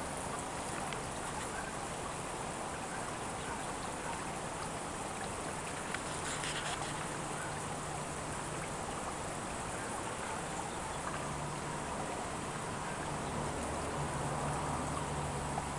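Small rock fountain trickling steadily, water falling into a little pond.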